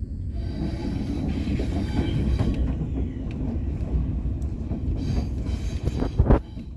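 TGV Lyria high-speed train running on the rails: a steady low rumble with rattling and clatter, and a sharp knock about six seconds in.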